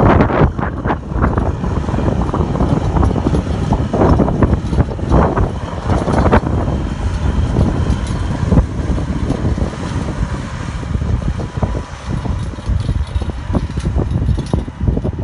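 Gusty wind buffeting the microphone, over the steady running of a John Deere tractor's engine as it pulls a scraper land leveler across the soil.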